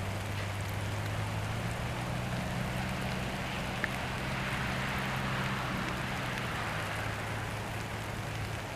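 Steady heavy rain falling through the woods, with a low steady hum underneath that fades out about six or seven seconds in.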